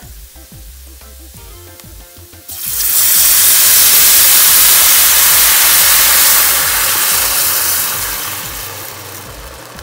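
Water poured into a hot skillet of rice mix toasted in butter. About two and a half seconds in it hits the pan with a loud sizzling hiss, which dies down slowly over the last few seconds.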